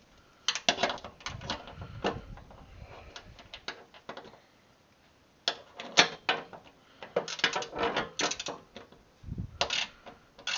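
Ratchet wrench clicking in quick bursts while nuts are run down on the mower deck's spindle mounting bolts, with a quiet pause in the middle.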